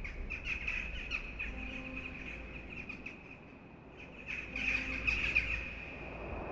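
Birds chirping and twittering in quick short calls, busiest in the first couple of seconds and again about five seconds in, with a quieter patch in between.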